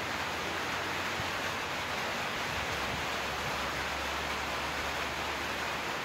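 Steady, even hiss of rain falling outdoors, with no distinct drops or other sounds standing out.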